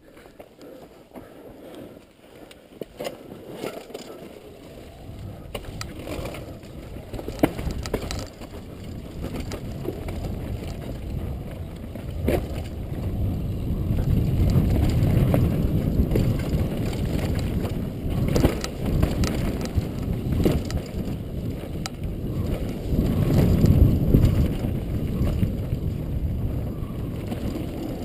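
Downhill mountain bike ridden down a dirt trail, heard from the rider's helmet: wind rumble on the microphone and tyres on dirt and stones, with knocks and rattles from the bike. It is quiet at first and grows much louder over the first dozen seconds as the bike picks up speed.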